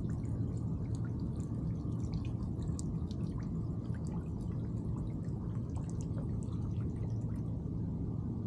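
Urine trickling and dripping onto a boat's deck and into the water, many small scattered drips over a steady low hum.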